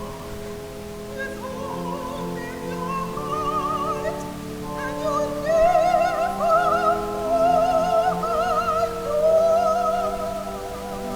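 Music: a solo singer with wide vibrato sings in a classical style over held accompaniment chords, the melody climbing to its loudest high notes about halfway through.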